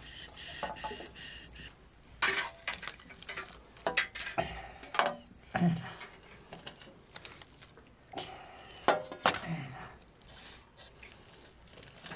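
Kitchen pots, dishes and utensils clattering: two spells of irregular clinks and knocks with quieter stretches between.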